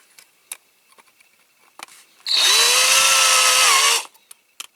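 Small electric drill running in one burst of under two seconds, starting a little past halfway, drilling out a rivet on a diecast model truck; its whine dips in pitch near the end as the bit bites. Before it, a few light clicks.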